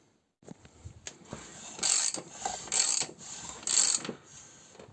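Mechanical ratcheting strokes from hand work on an engine: three loud rasping strokes about a second apart, with lighter clicks between them.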